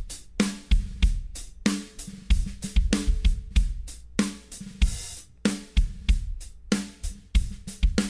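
A recorded drum kit (kick, snare, hi-hat and cymbals) plays a steady beat, several hits a second, through an SSL stereo bus compressor that is squeezing the drum bus for an A/B sound test.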